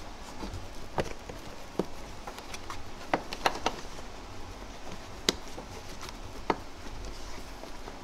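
Scattered sharp clicks and taps of plastic as a roof grab handle is worked at its clips in the headliner: about eight, spread irregularly, with a quick cluster a little past three seconds in.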